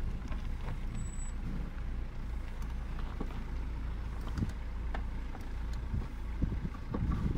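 Car driving slowly on a bumpy dirt track, heard from inside the cabin: a steady low rumble of engine and tyres, with scattered short knocks and rattles.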